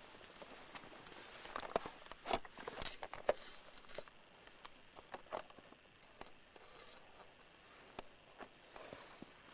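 Faint rustling with scattered sharp clicks, bunched together about two to three and a half seconds in; no engine is running.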